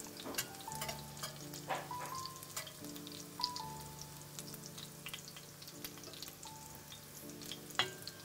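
Meat-and-potato cutlets frying in shallow oil in a stainless steel pan, the oil sizzling and crackling, with sharp clicks of a metal spatula and fork against the pan as the cutlets are lifted out. Soft background music with held chords plays underneath.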